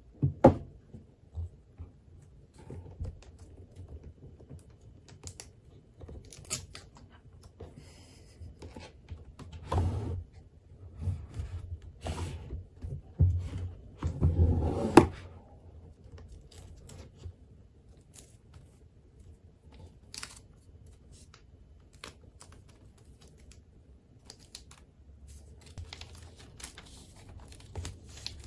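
Handling of a white cardboard iPad box: the lid lifted off and set down, fingers tapping and scraping on the box, with irregular knocks, the loudest about half a second in and near the middle. Near the end, paper wrapping rustles as the tablet is drawn out of the box.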